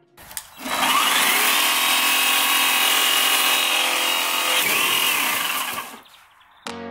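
Electric chainsaw running: the motor winds up about a second in and then runs at full speed with a high whining chain. The pitch dips briefly and picks up again near the 5-second mark, and the saw winds down about 6 seconds in.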